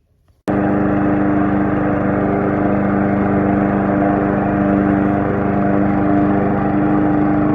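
PowerSmart 21-inch push mower's 144cc gas engine running steadily at a constant speed, coming in abruptly about half a second in.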